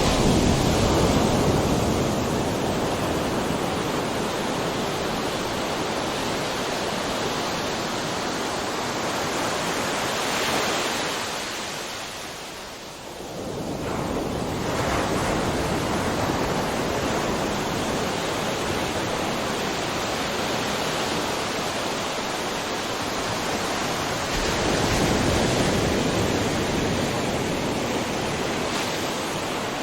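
Ocean waves crashing and washing on a shore, a steady rush of surf that swells loudest at the start, falls away briefly about twelve seconds in, then builds again with another swell near the end.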